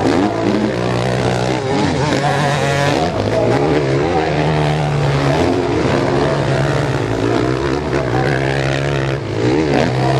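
Several motocross bikes racing over the jumps, their engines revving up and down and overlapping one another as riders open and close the throttle.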